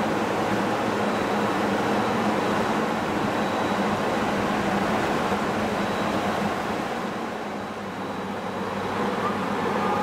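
Giant pendulum amusement ride running, its gondola swinging on the arm: a steady mechanical rumble and rush that eases briefly about three quarters of the way through, then rises again.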